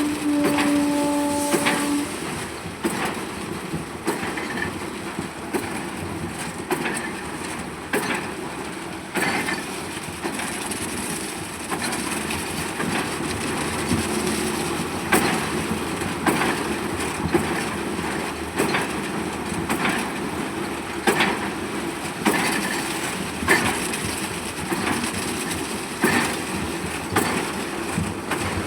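Construction machinery running during pile-foundation concrete pouring: a steady mechanical rumble with irregular knocks and clatter. A horn sounds at the start and stops about two seconds in.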